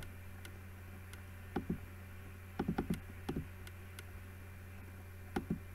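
Computer mouse clicking in short clusters of one to four clicks: right-clicks and menu picks. Under the clicks runs a steady low hum.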